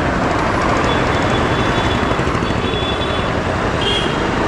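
Steady road traffic noise from passing motorbikes, scooters and cars, heard close up from a stationary motorcycle, with a brief high tone about four seconds in.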